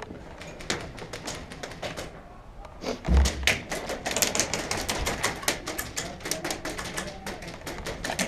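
Airsoft guns firing in rapid, irregular bursts: a clatter of sharp clicks that grows densest from about three seconds in, with a low thump just after three seconds.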